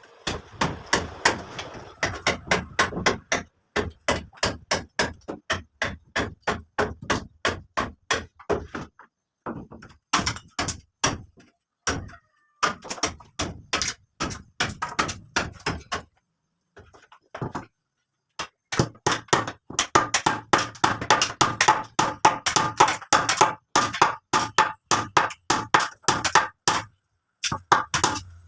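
A hand tool striking over and over, three or four sharp blows a second, in runs broken by a few short pauses.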